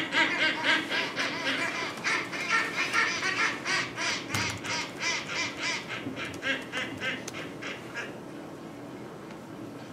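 Skuas calling, played from a field recording over loudspeakers: a rapid series of harsh, pitched calls, several a second, that fades out near the end. This is their ordinary social calling.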